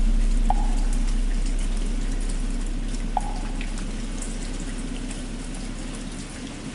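Steady rain, with the low hum of a large bell struck just before slowly fading away underneath it. Two small high taps come in, about half a second in and again about three seconds in.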